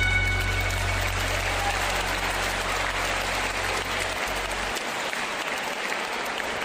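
Audience applauding as recorded music fades out in the first second. A low hum cuts off about four and a half seconds in.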